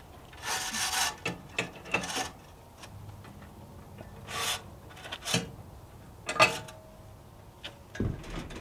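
Steel trailer safety cables and their hooks scraping and clinking against the tow hitch as they are attached, in a string of short separate handling noises. The loudest is a clink about six seconds in that rings briefly.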